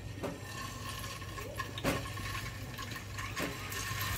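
Peeled hard-boiled eggs are set one at a time into hot oil in a frying pan, which sizzles softly, with a few light knocks as they go in.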